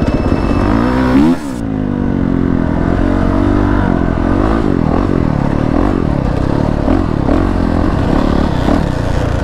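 Honda CRF450RX dirt bike's single-cylinder four-stroke engine, heard from the rider's own bike, revving up and down over and over as the bike accelerates and shifts while riding. A sharp rev peaks and falls away about a second and a half in.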